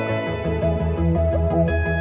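Instrumental background music: a melody of held notes over a steady pulsing bass, about four bass notes a second, with the bass coming in a quarter second in.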